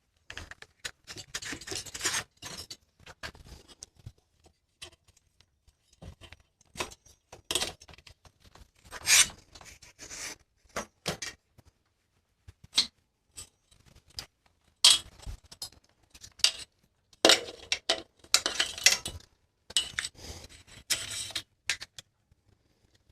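Hand tools and bicycle drivetrain metal clinking, clattering and scraping in irregular spells as a rear derailleur is unbolted with a 4mm hex key and handled, with the loudest clatters about 9, 15 and 18 to 21 seconds in.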